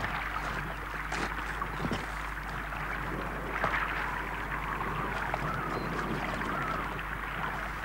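Steady hissing background noise with a constant low hum, and a few faint clicks and rustles from hands handling the bark of a bark canoe.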